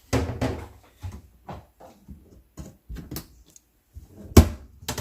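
Kitchen cupboard doors and drawers opening and shutting, with a run of knocks and clatters and one sharp bang near the end, while someone hunts for a bowl.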